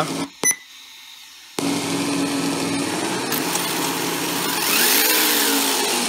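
Simulated engine sound from a GT Power RC engine sound system's speaker. It cuts out just after the start, a short beep sounds, then about a second and a half in the engine sound comes back at a steady idle. Near the end it revs up and falls back down, as the throttle is worked.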